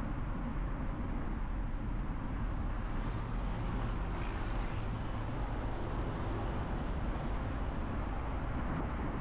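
Steady rumble of a moving vehicle: engine and road noise, even and unbroken.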